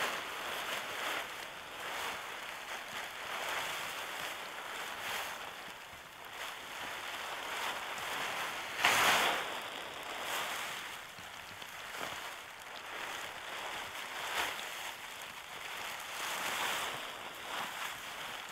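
Seek Outside Cimarron tent fabric rustling and flapping as it is pulled out and shaken open, in repeated swishes with the loudest one about halfway through.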